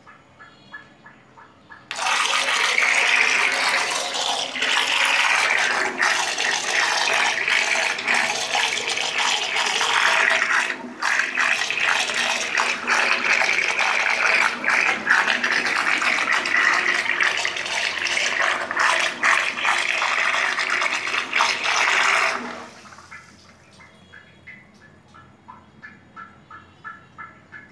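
Water churning and splashing in a plastic tub, stirred up by a small homemade water-jet thruster (an electric motor in a PVC pipe) running underwater. The rushing starts abruptly about two seconds in, runs steadily with many small splashes, and stops suddenly near twenty-two seconds, after which the water goes quiet.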